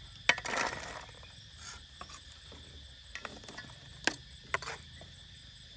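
Sliced lemongrass being put onto a steel tray: a sharp click and a brief rustling patter, then a few light clicks and taps.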